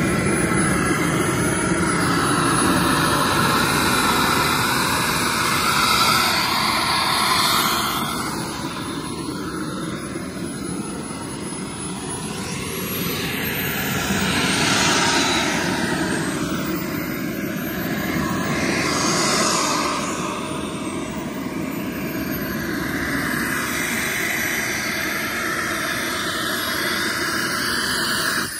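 Model jet turbine running at idle: a steady high whine over a rushing exhaust, swelling and easing a few times, with the level falling away right at the end.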